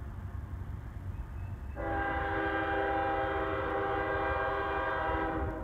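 Locomotive air horn, out of sight down the line, sounding one long chord of several steady pitches for about three and a half seconds, starting about two seconds in and cutting off near the end.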